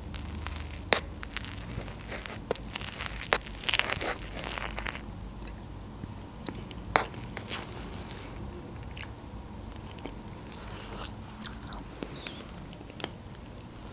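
Close-miked eating sounds of a whipped airy curd dessert: a metal spoon clicking and scraping in a plastic cup, with wet mouth smacks as spoonfuls are eaten. The clicks come thickly for the first few seconds, then more sparsely.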